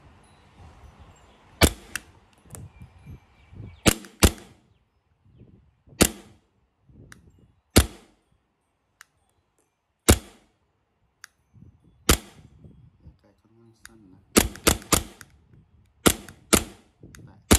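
WE Tech Glock 17 gas blowback airsoft pistol firing with no BBs loaded: about fifteen sharp cracks, single shots roughly every two seconds at first, then a quick string of four about fourteen seconds in and several more close together near the end.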